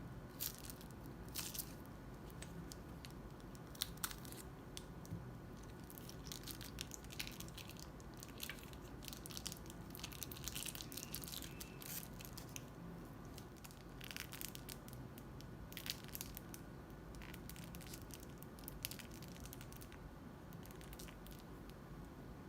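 Crunchy slime squeezed and worked by hand, giving irregular crackles and pops that come thickest in the middle stretch, with a few sharper snaps.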